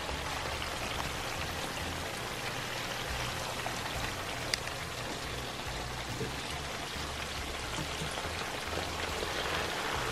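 Diced potatoes frying in a shallow layer of oil in a skillet: a steady sizzle with a few small pops.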